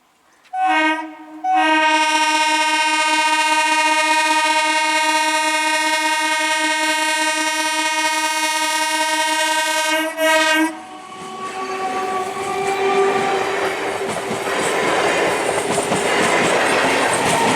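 Indian Railways train horn: a short blast about half a second in, then one long blast held for about eight and a half seconds, then a brief toot. The train then runs past close by, its rumble and wheel clatter building.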